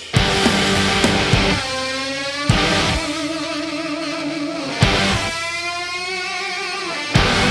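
Background rock music: sustained electric guitar notes with a wavering vibrato, punctuated by sharp hits about every two and a half seconds.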